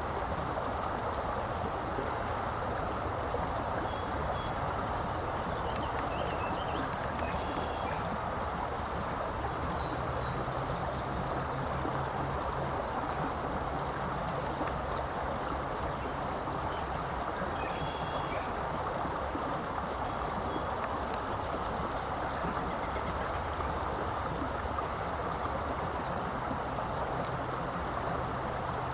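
Steady rush of flowing water, even and unbroken. A few short, high chirps come now and then, and a faint low hum joins partway through and again near the end.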